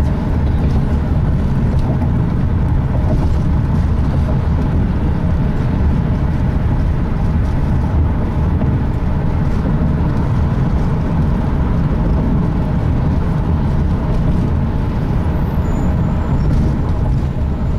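Steady low rumble of a road vehicle in motion, unchanging throughout.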